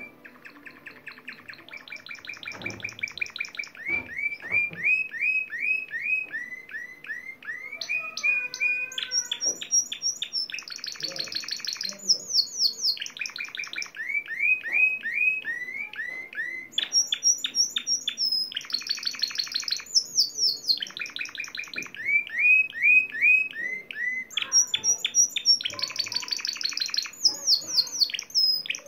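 Spanish Timbrado canary singing a discontinuous (discontinuo) song: runs of rapidly repeated, clipped notes, each held for a second or two before switching to a new note, with lower runs alternating with higher, faster rolls. The song grows louder over the first several seconds.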